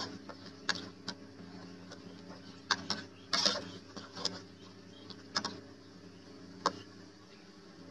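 Metal ladle stirring in a large aluminium cooking pot of water and sliced vegetables, knocking and scraping against the pot in irregular clinks, over a steady low hum.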